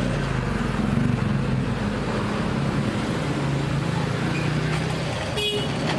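Janome NS 385 sewing machine running at speed, its external motor driving the needle in a fast, even stitching rhythm. A brief click is heard about five and a half seconds in.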